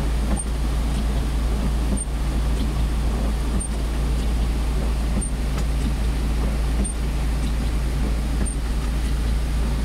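A vehicle engine idling with a steady low rumble, over a wash of heavy rain and running floodwater, with a faint tick about every one and a half seconds.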